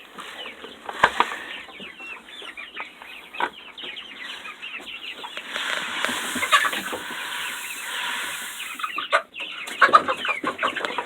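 A flock of chickens clucking and squawking excitedly around food, with sharp peeps among them. From about five to nine seconds in, a steady rustling noise joins them.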